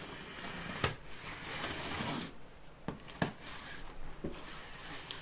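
Large cardboard box being opened by hand: a sharp knock about a second in, then about a second of cardboard rubbing and scraping, followed by a few more sharp knocks and taps.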